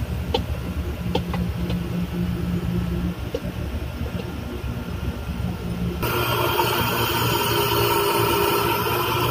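Steady low hum of a ship's workshop machinery, with a few light metallic clicks in the first seconds. About six seconds in, the sound jumps abruptly to a louder, hissier steady noise.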